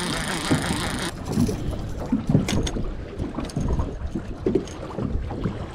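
Wind hiss on the microphone that drops off about a second in, then water slapping against a small metal boat's hull with scattered clicks and knocks from a baitcasting reel and line being handled as a hooked fish is brought in.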